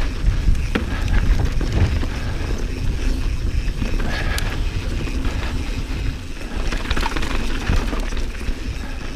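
A 2019 Santa Cruz Bronson mountain bike riding down a dirt trail: a steady low rumble of the tyres on the ground, with scattered clicks and rattles as it rolls over rocks and bumps.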